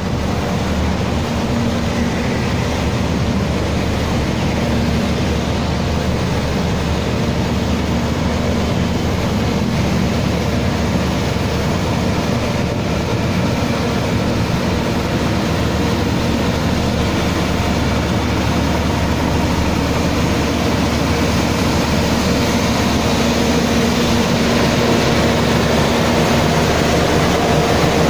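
A heavy engine or machine running steadily, with a steady hum under a loud rushing noise that grows slightly louder near the end.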